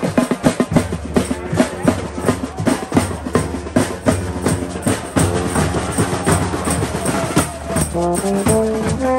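Carnival-style brass and drum band music: drums play a fast, busy rhythm throughout. Near the end, horns come in with a rising run of held notes.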